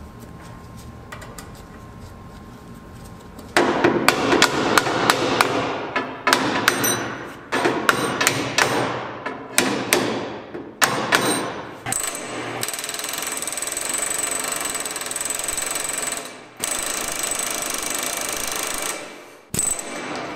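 Hammer blows on steel, sharp ringing strikes coming in quick series, followed by two stretches of several seconds of continuous rapid rattling noise, and a few more strikes near the end.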